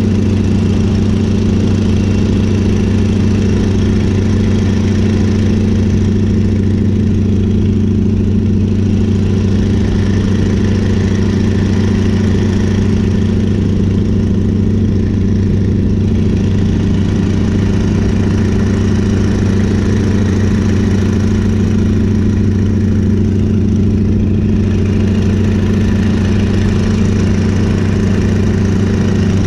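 Stearman PT-17 biplane's seven-cylinder radial engine running steadily at cruise power, heard from inside the cockpit in flight with a steady rush of air.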